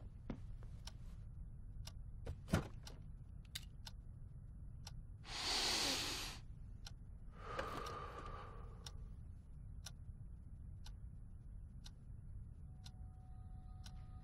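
Wall clock ticking about once a second over a low steady room hum. Two soft breathy sounds come about five and about seven seconds in. Faint sustained music tones enter near the end.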